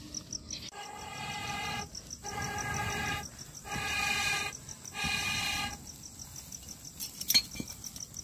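A cricket chirping in a fast, even pulse. Over it come four spells of a steady-pitched drone, each about a second long, and a sharp click near the end.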